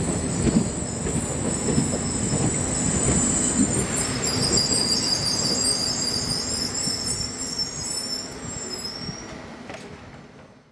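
Circumvesuviana electric commuter train rolling past, its steel wheels squealing in high, wavering tones over a low rumble and clatter from the track. The sound fades out near the end.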